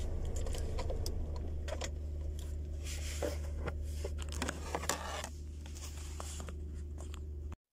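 Handling noise from a phone being grabbed and tipped by hand: rustling scrapes and scattered light clicks. Under it runs a steady low hum from the Nissan X-Trail's idling engine, heard inside the cabin.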